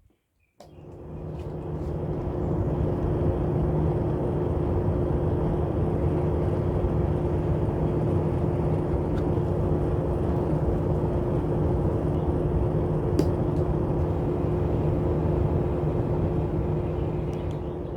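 A small electric motor starts about half a second in, builds up over a couple of seconds, then runs steadily with an even whirring hum.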